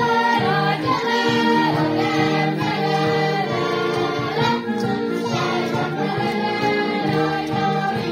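A group of voices singing a Hungarian folk song together, the held notes moving in steps.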